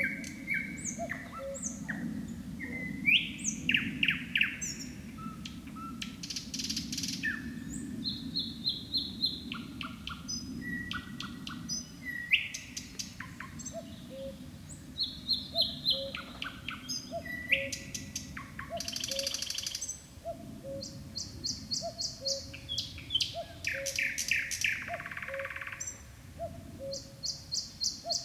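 Nightingale singing: a run of varied phrases of repeated whistled notes, clicks and fast rattling trills, separated by short pauses. Behind it a faint low two-note call repeats about once a second over a low steady background hum.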